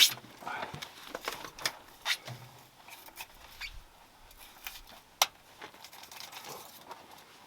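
Irregular clicks and knocks of hand tools and parts being handled, loudest right at the start, with a sharp click about five seconds in.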